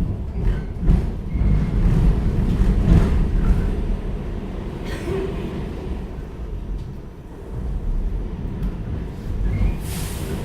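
R46 subway car running along the track: a steady low rumble of wheels on rail with several knocks and rattles, two brief wheel squeaks, and a short hiss just before the end.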